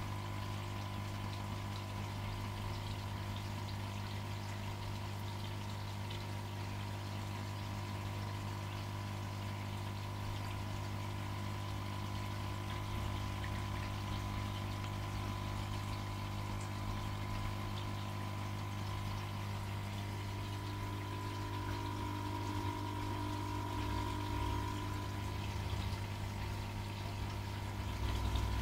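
Aquarium pump running with a steady low hum, with water flowing through the tank's filtration.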